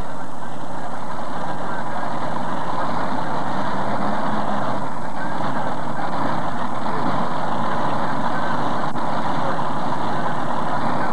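Multi-engine modified pulling tractor idling after its pull, a steady, dense engine noise with no revving.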